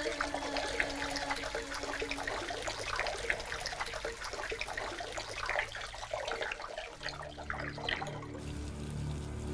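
Water trickling and splashing from a small pedestal garden fountain, with many small drips. Low steady music comes in about seven seconds in.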